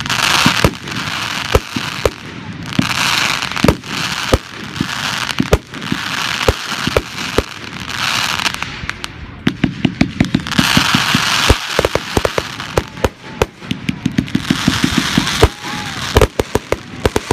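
Fireworks display: aerial shells launching and bursting with sharp bangs. Twice, around ten and fifteen seconds in, a barrage fires a rapid string of about ten shots a second.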